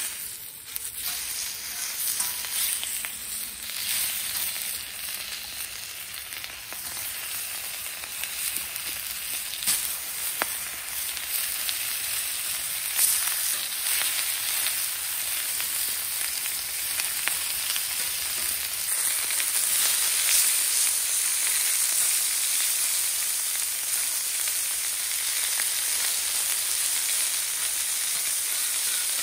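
Meat frying in oil on a hot stainless steel griddle over a wood stove, a steady high sizzle that sets in suddenly as the first piece goes on and grows louder as more pieces are added, with a few sharp clicks of metal tongs.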